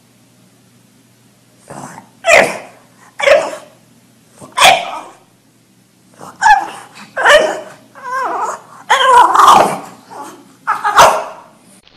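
A dog barking in a string of loud outbursts, starting about two seconds in. The first few are short and about a second apart; after that they come closer together and are longer, with a wavering pitch.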